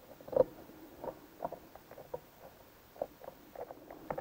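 Small clicks and taps of a hand Torx screwdriver turning a T-20 screw into the cover of a CVT transmission's driven unit, with one louder knock about half a second in.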